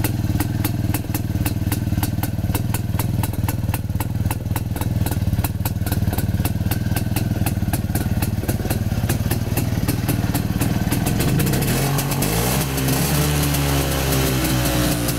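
A restored Jawa 250 Type 353 motorcycle's single-cylinder two-stroke engine idling with a steady, even beat. Near the end the throttle is opened, and the revs rise and fall again.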